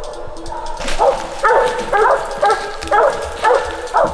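A cur squirrel dog barking steadily at a tree, about two barks a second beginning a second in: the tree bark of a dog that has a squirrel treed.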